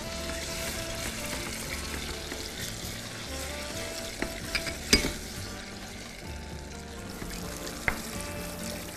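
Tomato and red pepper sauce sizzling in a frying pan as it is stirred, with a few sharp clicks, the loudest about five seconds in.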